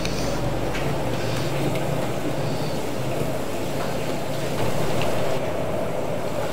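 Steady roar of a commercial kitchen's gas wok burner under prawns cooking in chili and tomato sauce, with a few faint clicks.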